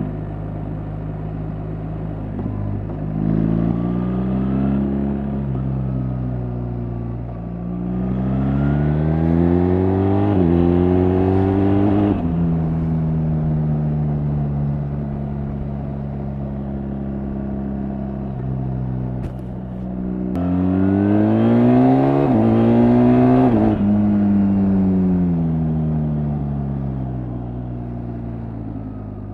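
BMW R1300 GS boxer-twin engine and exhaust heard from the rider's seat. Three times it pulls harder, its pitch climbing for a few seconds and then falling away; the longer pulls come in the middle and near the end. Between them it runs at a steady cruise.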